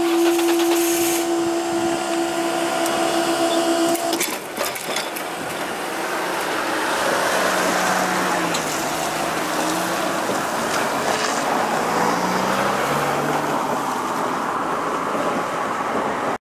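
Level-crossing barrier machinery whining steadily as the lifting barriers rise, cutting off sharply about four seconds in. Then road traffic crosses the rails, a van and a car passing over the crossing with engine and tyre noise that swells and fades.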